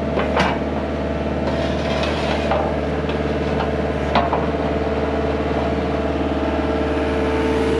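Engine of a piece of heavy equipment idling steadily, with a couple of short knocks and a brief hiss.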